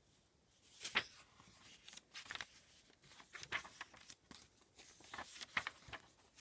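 Pages of a paper journal being turned and handled: a run of short paper rustles and rubs, with a sharp snap of a page about a second in.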